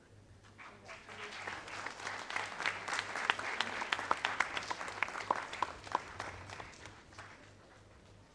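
An audience of schoolchildren applauding, the clapping building up over about two seconds, holding, then dying away.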